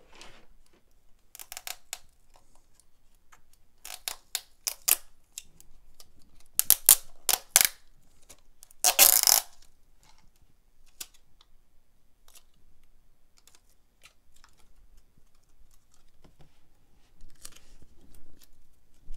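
Hands working at the seal of a cardboard product box: clusters of sharp crackles and clicks, then a short, louder tearing rasp about nine seconds in. The seal is being opened by hand, without a knife.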